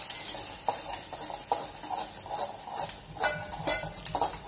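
A steel spoon stirring thick masala paste in an aluminium pot, with irregular scrapes and clinks against the pot's sides, over a faint sizzle of the paste frying in oil.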